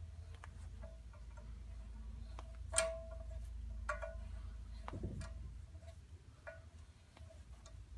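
Sharp metallic clicks and short rings as a steel hex key turns in and is reseated in the cap screws of a steel barrel vise, tightening it on the barrel. The clicks come singly at uneven gaps, the loudest a little under three seconds in.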